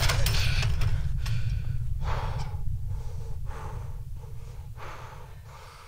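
Low earthquake rumble, fading out gradually, with a man breathing hard in about five quick gasps over its second half.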